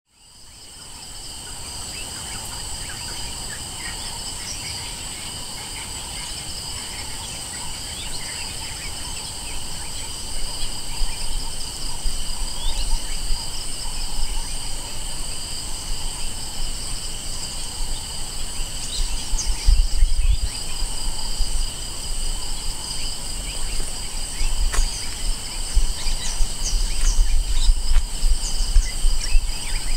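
A chorus of insects shrilling in steady high drones at several pitches, fading in over the first second, with a few faint bird chirps. Low rumbles come and go, growing stronger in the second half.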